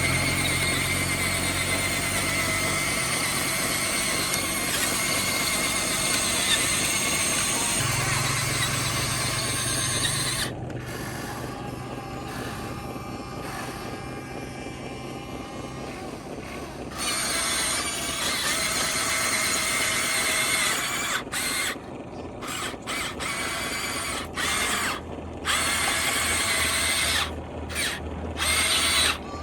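Electric motors and gearboxes of a Huina radio-controlled construction model whirring with a high-pitched whine. The whine drops away for several seconds about a third of the way in, then starts and stops in short spells near the end as the controls are worked.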